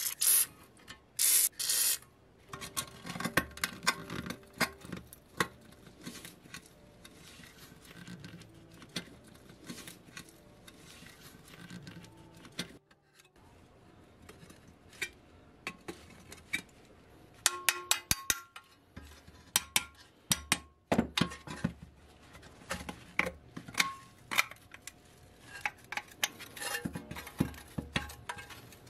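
Two short hisses of an aerosol lubricant spray near the start, then a long run of small metal clicks, clinks and scrapes as pliers pry at rusty pressed-steel toy truck parts, with busy clusters of clicks in the second half.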